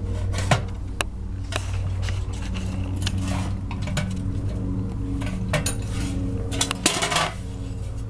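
Metal clinks and rattles from a steel camp stove's folding legs and cotter pins being swung out and pinned in place, with scattered sharp clicks, the loudest about half a second in and a cluster near the end.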